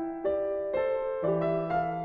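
Background piano music: gentle sustained notes with a bass line, the chords and bass changing about every half second.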